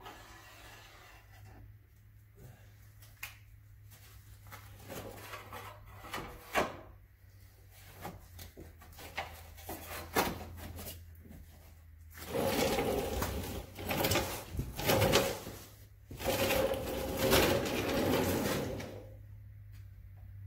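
A new sheet-metal rocker panel being handled and slid into place against a pickup's rocker: light knocks and rubs, then two longer stretches of metal scraping and rubbing, each about three seconds, in the second half. A low steady hum runs underneath.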